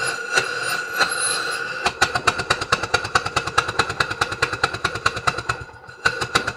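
Compressed air let through a brass steam stop valve, starting suddenly and running with a steady whistle and a rapid, even pulsing, which dips briefly near the end. The valve opens and shuts off the flow as it should.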